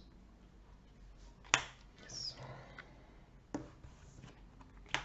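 Three sharp taps on a tabletop, the loudest about a second and a half in, over quiet room tone.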